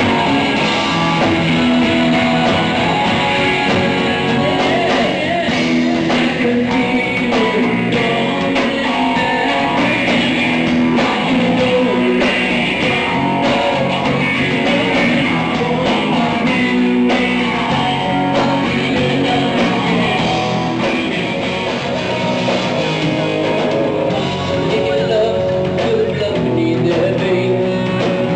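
Live rock band playing loudly, with electric guitars, bass guitar and a drum kit.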